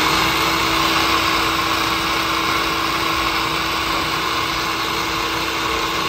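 Black & Decker electric mini food chopper running empty, its motor and blade spinning at a steady pitch while the lid button is held down in a test run without food.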